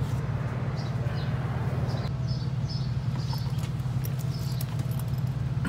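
A steady low mechanical hum with a fine rapid pulse, like an idling engine. Over it, rustling handling noise in the first two seconds and a few short, faint high chirps.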